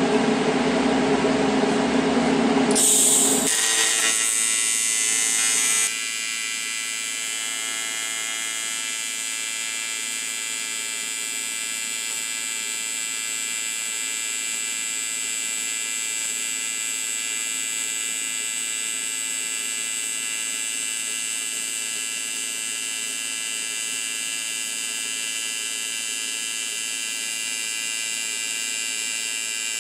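AC TIG welding arc on aluminum, set to 120 Hz at about 90 amps with 4043 filler, buzzing steadily while beads are laid. The arc comes in about three seconds in, with a louder hissing start for the first few seconds before it settles into an even buzz.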